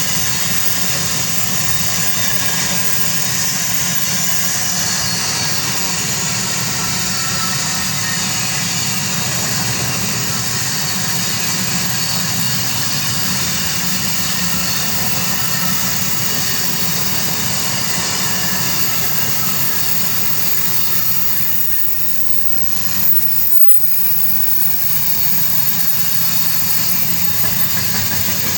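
Long iron-ore freight train rolling steadily past: a continuous low rumble of wagon wheels on the rails with a hiss above it. It dips briefly with a bump about 23 seconds in.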